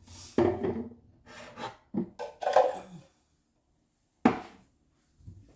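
Kitchen handling sounds: several short clatters and rubs, then a single sharp knock about four seconds in.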